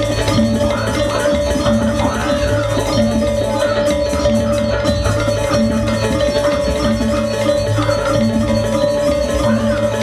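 Gamelan ensemble playing: metallophones and drums over a steady held tone, with short rising-and-falling glides above.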